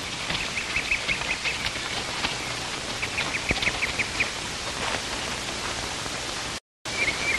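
Two quick runs of short, rapidly repeated bird chirps over a steady hiss, with a few scattered clicks. The sound cuts out for a moment near the end.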